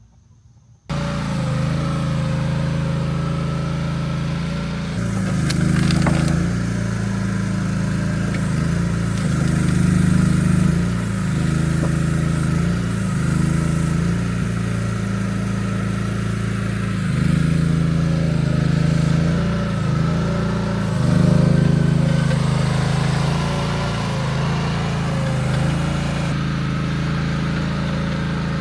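Engine of a MechMaxx MEC10 mini excavator running, its pitch and level shifting as it works under load. It starts abruptly about a second in.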